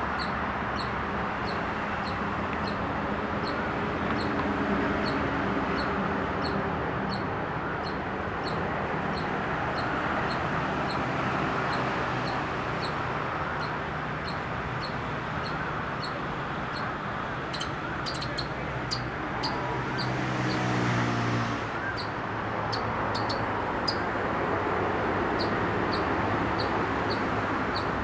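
Indian palm squirrel giving its repeated high-pitched chip call, about two calls a second, kept up steadily. Under it runs a steady hum of traffic, with a vehicle rising in pitch near the middle.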